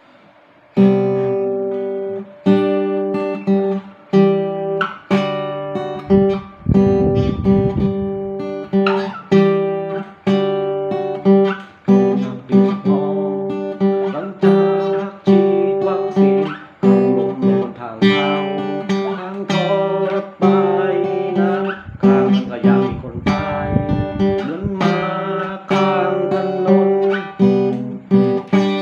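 Acoustic guitar strummed by hand, chords starting about a second in and struck a little more than once a second, each ringing out before the next.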